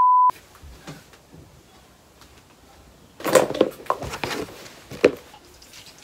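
A brief, loud 1 kHz test-tone beep, the tone that goes with TV colour bars, cut off after about a third of a second. Then a quiet room, with a burst of rustling about three seconds in and a sharp click a second or so later, as a handbag is handled.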